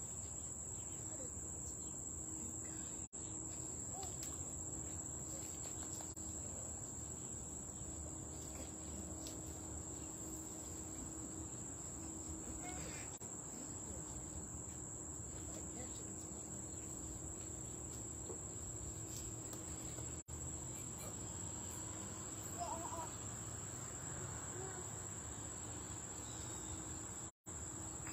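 A steady, unbroken high-pitched chorus of summer insects, with a faint low hum beneath it.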